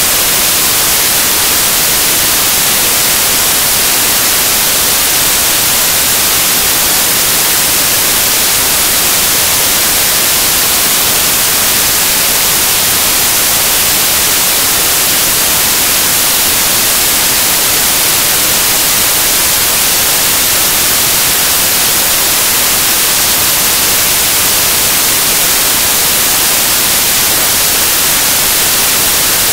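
Loud, steady static hiss like white noise, unchanging throughout, with nothing else heard. It matches a corrupted stretch of the recording.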